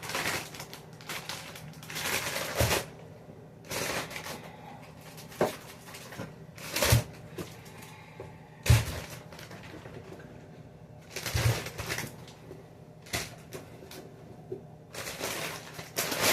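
A plastic bag rustling in a dozen or so short bursts as groceries are handled, likely oranges being put into the bag, with a few soft thumps of items being set down.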